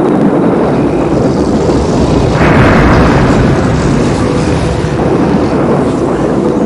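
A loud, continuous low rumbling roar from a film's sound effects, growing brighter and louder about two and a half seconds in.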